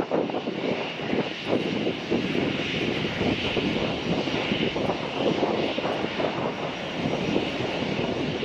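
Airbus A330-300 jet engines at climb thrust: a steady, ragged, crackling roar as the airliner climbs away, easing off slightly toward the end.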